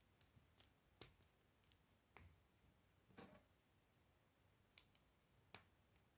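Plastic K'nex rods snapping into their connectors. There are several faint sharp clicks, the loudest about a second in, with soft rustling of the plastic pieces being handled in between.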